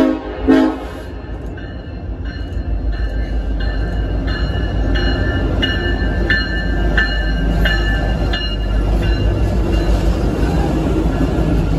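Freight train led by EMD SD70ACe diesel locomotives passing close by. Two short horn blasts sound at the start, then the locomotive bell rings about three strikes every two seconds. Under it runs the low rumble of the diesel engines and rolling wheels, growing louder as the units go past.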